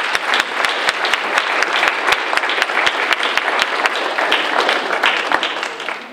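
Audience applauding, a dense patter of clapping that tapers off near the end.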